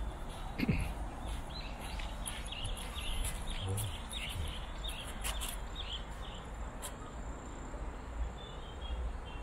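Small birds chirping in quick runs of short calls over a steady low outdoor rumble, with softer chirps again near the end.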